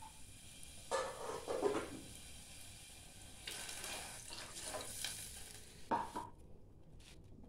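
Pot of soup simmering on a gas stove with a steady hiss, while a utensil stirs and scrapes in the pot about a second in and again midway. A sharp click about six seconds in, after which the hiss stops abruptly.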